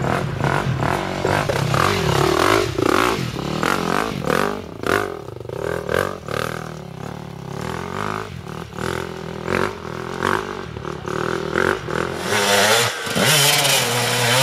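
Dirt bike engines revving hard and unevenly as they claw up a steep muddy climb, the pitch surging and dropping with the throttle, over repeated clattering knocks. The engines get louder and harsher near the end.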